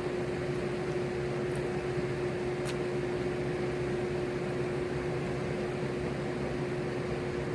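Electric fans running, a steady whir of air with a constant motor hum.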